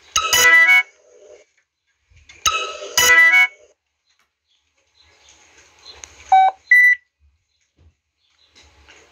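Phone low-battery warning beeps: two loud, harsh electronic tones about two and a half seconds apart, then two short beeps about six seconds in, the second higher in pitch.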